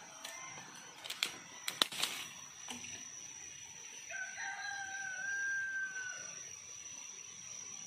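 A rooster crows once, a drawn-out call of about two seconds starting about four seconds in. Before it come a few sharp knocks of wood, and a steady high-pitched whine runs underneath.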